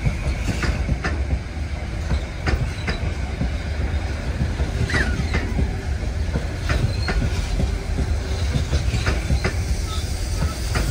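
A moving vehicle, steady low rumble with scattered irregular clicks and a brief squeal about five seconds in.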